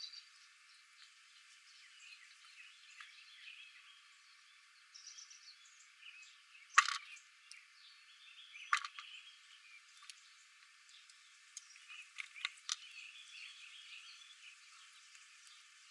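Faint outdoor ambience of small chirping animal calls, broken by a few sharp clicks: the loudest about seven seconds in, another about two seconds later, and a quick cluster near the end.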